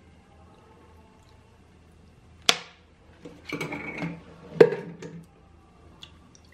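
Kitchen handling sounds: two sharp knocks about two seconds apart, with a short clatter between them, as a spoon works in a glass bowl of herring pieces soaking in milk.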